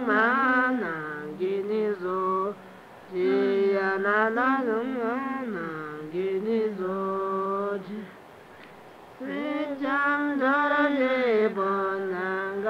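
A voice singing a slow, chant-like song in long, held, wavering notes, with a short pause about three seconds in and a longer pause between phrases about eight seconds in.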